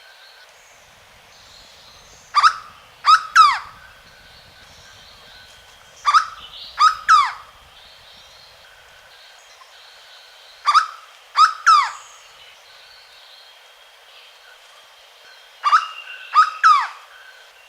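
Hooded berryeater (corocoxó) calling: loud phrases of mostly three quick, sharply falling notes, repeated about every four seconds.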